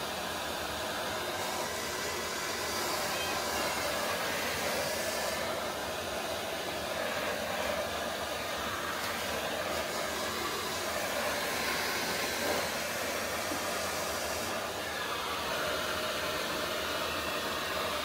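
Vacuum cleaner running steadily, with air rushing through its hose and brush nozzle; the hiss brightens and dulls a few times.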